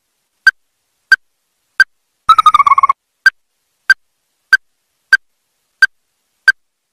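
Ruddy-breasted crake giving sharp single call notes, about one and a half a second. A little over two seconds in, the notes are broken by a short, slightly falling trill.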